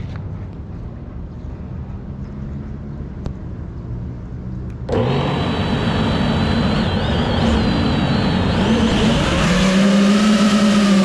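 FPV quadcopter motors: a low steady hum, then about five seconds in a sudden jump to a louder, rushing high-pitched whine whose pitch wavers with throttle.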